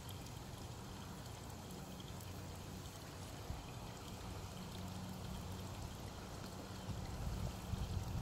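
Water in a swimming pool trickling and lapping steadily, with a low steady hum underneath.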